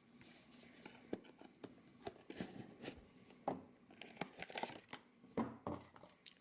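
Faint crinkling and light clicks of a cardboard toy box with a clear plastic window being handled and turned in the hands, a little busier in the second half.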